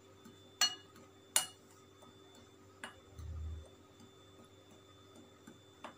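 A hand mixing dry crumbly powder in a glass bowl. Two sharp clinks come in the first second and a half as the hand knocks the glass, then a brief dull low thump, and a faint click near the end.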